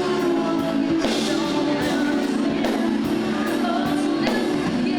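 Background music with a steady beat and sung vocals.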